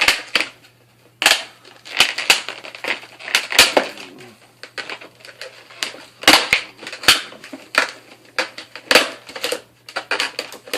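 Retail packaging of a microphone being opened and handled close to the mic: a dense, irregular run of crackles, crinkles and sharp clicks.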